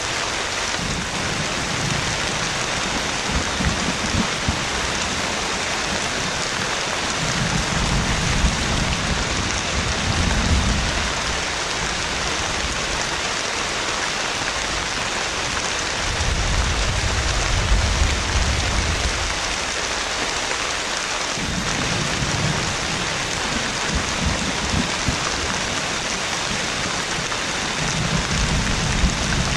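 Heavy rain pouring steadily, with deep thunder rolling in several long low rumbles that swell and fade every few seconds.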